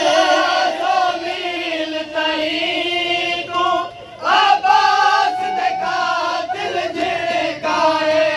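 Men chanting a noha, a Shia mourning lament, together in long sung lines, with a short break about four seconds in.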